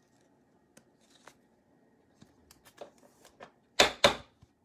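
Trading cards being handled: light scattered clicks and taps, then two loud swishes close together near the end as cards slide against each other.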